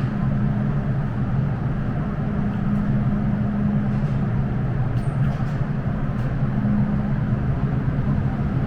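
MTR M-train electric multiple unit running between stations: a steady rail rumble with a low, steady motor hum and a few faint clicks.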